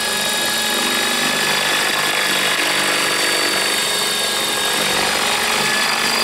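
Radio-controlled model helicopter flying overhead. Its motor and rotors make a steady high whine over a dense rotor noise.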